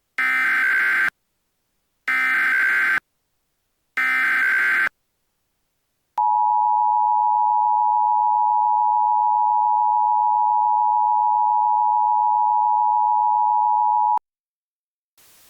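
Emergency Alert System tones: three bursts of SAME header data, each about a second long and a second apart, then the two-tone attention signal held steady for about eight seconds and cutting off suddenly. Together they mark the start of an emergency alert broadcast.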